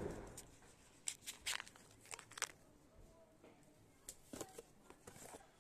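Hands handling small cardboard boxes on a concrete ledge: a handful of faint, scattered scrapes and clicks with quiet gaps between them.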